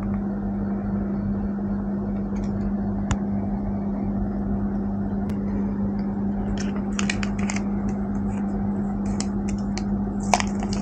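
A steady low hum throughout, with light clicks and rustles of a paper packaging tray and its plastic parts being handled, in two short spells: about two-thirds of the way in and near the end.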